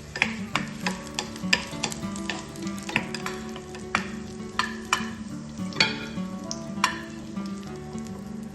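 Raisins frying in ghee in a pan while being stirred: a steady sizzle broken by frequent, irregular sharp clicks of the stirring utensil against the pan.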